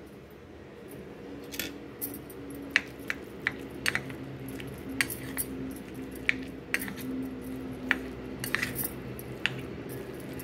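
A steel spoon clinking and scraping against a bowl while stirring a dry amaranth and moong dal stir-fry: irregular sharp clicks, over a faint steady hum.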